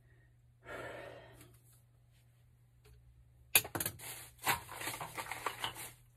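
Hands handling hard objects at the pipework, a quick run of clicks, rattles and scrapes over the last two and a half seconds. A short breathy hiss about a second in.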